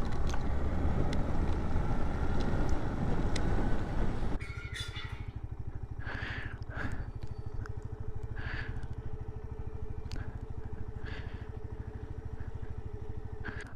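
Suzuki Van Van 125 motorcycle riding along, its single-cylinder engine under a rush of wind noise. After about four seconds it cuts to the motorcycle idling steadily, a low even pulse with a steady hum, and a few short high-pitched sounds over it.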